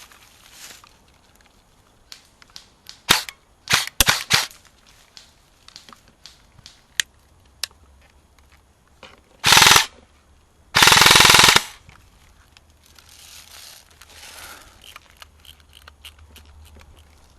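Airsoft guns firing: a few sharp single shots about three to four seconds in, then two short rapid-fire bursts around ten and eleven seconds, the second about a second long and the loudest.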